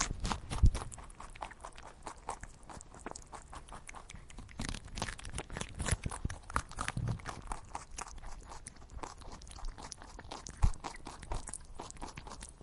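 Rapid, irregular crunching, many short crisp clicks in a close run, with a louder knock near the start and another near the end.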